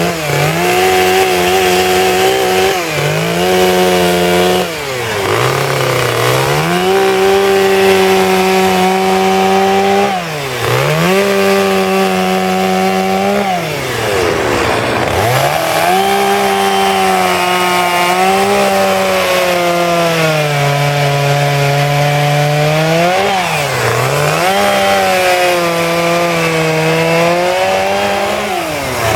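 Two-stroke chainsaw cutting wood for a carving, running near full throttle. The engine note drops steeply and climbs back about five times as the throttle is eased off and opened again. For a couple of seconds past the middle it sags lower under the load of the cut.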